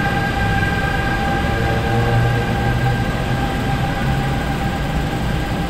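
NJ Transit ALP-46 electric locomotive's VVVF traction inverters whining as the train departs, with two steady high tones over the low rumble of the multilevel coaches rolling past. The sound eases off slightly as the locomotive moves away.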